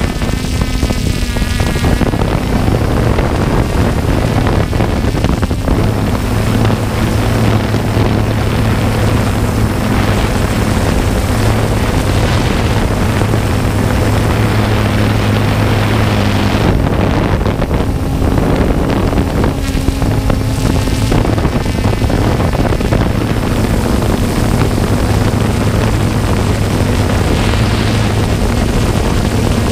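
Quadcopter drone's motors and propellers humming steadily, picked up by the drone's own camera microphone, with wind rushing over it. The pitch of the hum shifts a little a couple of times about halfway through as the motors change speed.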